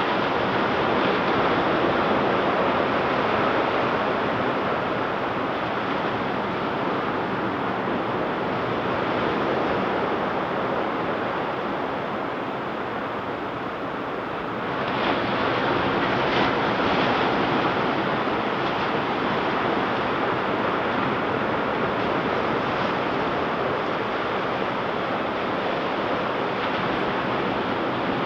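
Ocean surf: waves breaking and washing up the beach in a continuous rush, easing off a little about halfway through before a new wave breaks.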